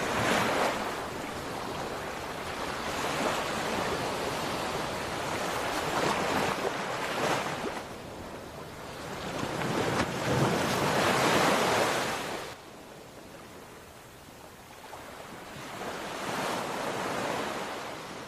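Ocean surf: waves breaking and washing in, swelling and fading every few seconds, with wind. The loudest surge comes past the middle and then drops off suddenly to a softer wash.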